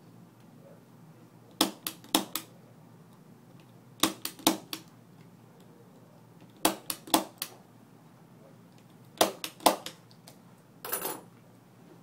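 A 110-style impact punch-down tool snapping as it seats Cat 5e conductors into the IDC terminals of a shielded RJ45 keystone jack. It comes in four groups of three or four quick, sharp snaps, about two and a half seconds apart, then a short clatter near the end.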